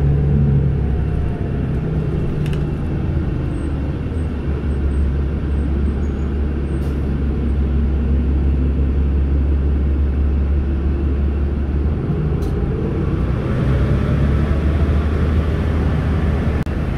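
Steady engine and road rumble heard from inside a moving city bus, with a whine that slides in pitch and a few light clicks and rattles.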